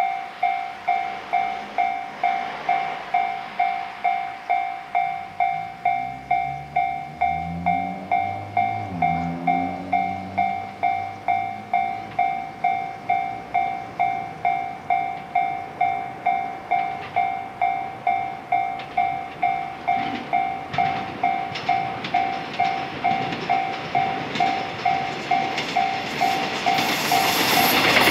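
Railway level-crossing warning bell ringing in a steady electronic ding about twice a second, stopping near the end as the Okayama depot's B17 electric train set runs past close by, its wheel and running noise rising loud.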